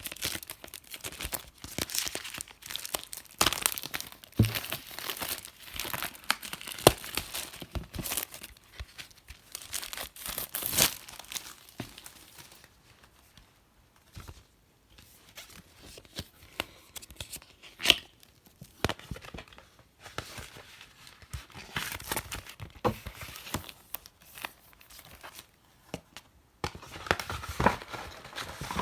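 Packaging being torn open and crinkled by hand: irregular rustling and crackling with a few sharp rips, easing off for a few seconds around the middle.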